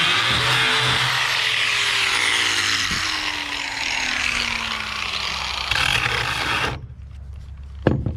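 Angle grinder grinding the heads off bow-rail fasteners, a loud steady grinding noise that cuts off suddenly about seven seconds in, followed by two sharp knocks near the end.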